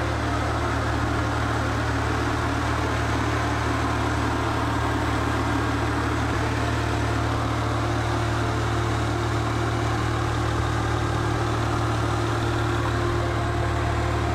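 Volvo B6304T2 3.0-litre 24-valve turbocharged straight-six idling steadily, with no revving. It runs evenly, which the seller calls running excellently.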